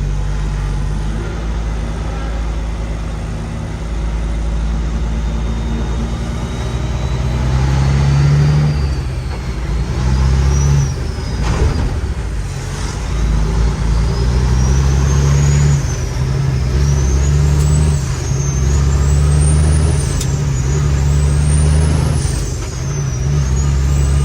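Cummins X15 diesel of a loaded Kenworth T800 semi truck pulling hard, heard from the cab. A high whistle climbs with the engine and drops back at each gear change, four or five times in the second half.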